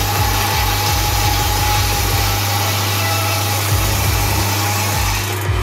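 Table saw running steadily with a constant hum and hiss while a wooden board is fed along the fence through the blade.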